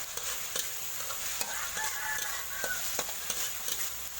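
Curry paste sizzling in a hot pan, with a spatula clicking and scraping against the pan as it is stirred.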